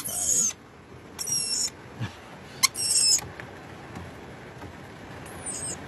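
Rainbow lorikeet giving four short, shrill, high-pitched screeching calls, spaced a second or more apart.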